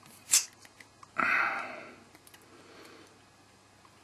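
Gas can filling a gas blowback airsoft pistol magazine through its fill valve: a short sharp spurt about a third of a second in, then a hiss of about a second starting a little after one second in and fading away, with a few faint clicks after it.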